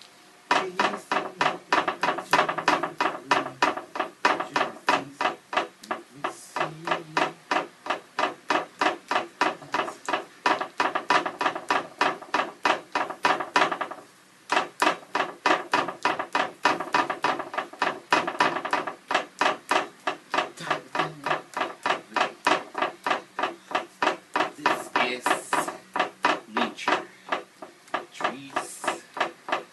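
A paint-loaded hand patting and dabbing acrylic onto a round canvas lying flat on a table, in a steady rhythm of about three pats a second with one short pause about halfway through.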